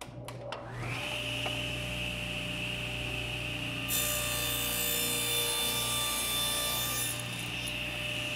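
Table saw switched on, its motor and blade spinning up to a steady whine within about a second. From about four seconds in, the blade makes a 45-degree miter cut across a board for about three seconds, adding a loud rushing hiss. Then the blade runs free again.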